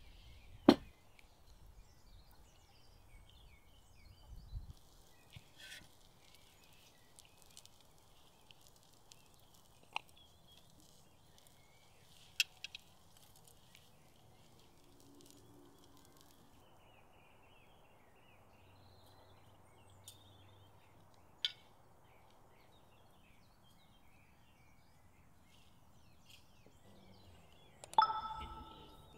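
Quiet outdoor background with faint bird chirps and a few sharp clicks, the loudest about a second in. Near the end a serving plate is set down on a table with a ringing clink.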